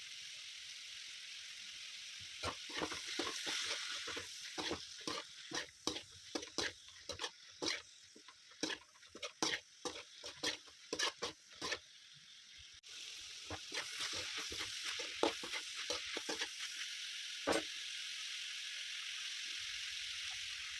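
Food frying in a pan with a steady sizzle while a spatula stirs it, knocking and scraping against the pan about once or twice a second. Around the middle the sizzle abruptly gets louder and the knocks become sparser.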